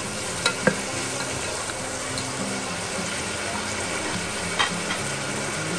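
Chopped onions sizzling steadily in hot ghee in a pressure cooker pot, with a spatula clicking against the pot twice about half a second in and once more near the end.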